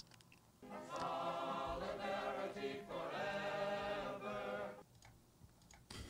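Recorded choir-like singing, two held phrases lasting about four seconds, played quietly.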